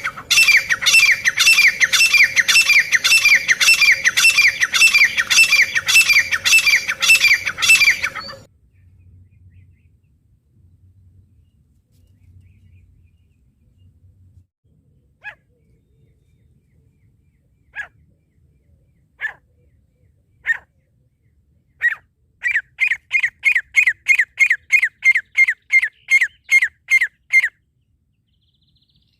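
Francolin calling: a loud, fast run of repeated harsh notes for about eight seconds. After a pause come a few single notes that speed up into a second, slightly quieter run.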